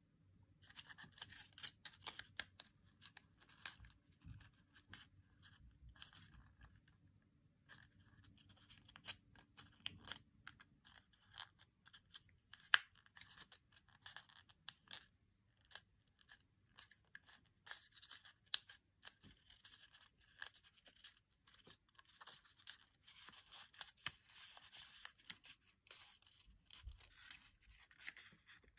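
Small square of origami paper being folded and pinched into shape by hand: faint, irregular crinkling and crackling of the paper, with soft clicks as the folds are creased.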